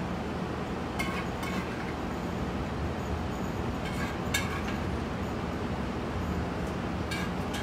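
A few light clinks of kitchenware as a plate is finished: around a second in, around four seconds in and near the end. A steady low kitchen hum runs underneath.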